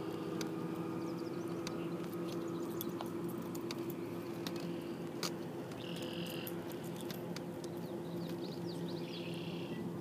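Steady low motor hum, with scattered small clicks as a crankbait's hooks are worked out of a rock bass. Short chirping calls come twice, a little after six and nine seconds in.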